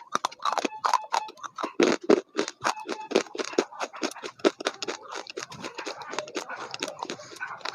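Close-up eating noises: a quick, uneven run of crunches, clicks and scrapes.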